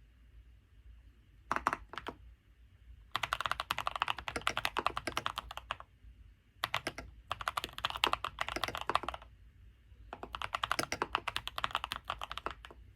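Typing on a mechanical keyboard: fast runs of key clicks in four bursts, the first short, the others two to three seconds each, with brief pauses between them.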